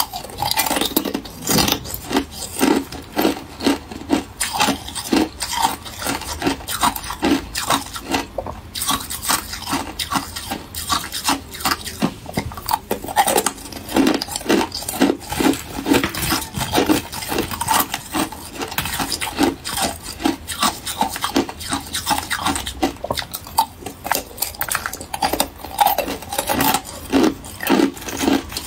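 Thin balloon ice being bitten and chewed: a steady run of sharp crunches and cracks, roughly two a second, mixed with the clink of thin ice pieces being snapped and picked out of a silicone tray.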